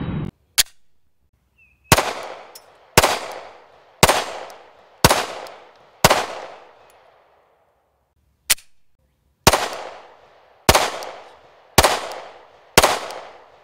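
9mm semi-automatic pistol fired in two strings of five shots, roughly one shot a second, each shot ringing out in a long echo tail. A shorter, sharper crack comes before each string.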